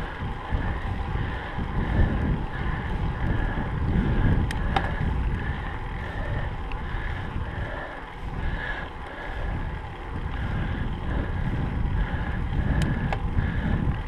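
Wind rumbling on an action camera's microphone while riding, with a faint high-pitched sound repeating about twice a second.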